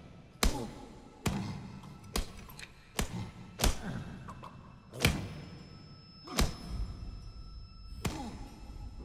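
Heavy blows in a fistfight: eight sharp thuds roughly a second apart, each with a short ringing tail, over faint background music.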